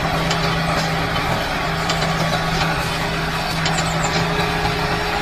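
Tractor engine running steadily at an even speed, with a constant low hum.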